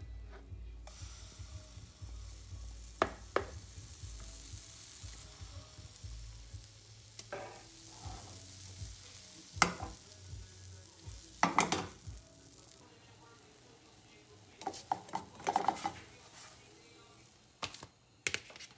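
Pancake batter sizzling in a hot non-stick frying pan, with cooking utensils clinking and knocking against the pan and bowl several times.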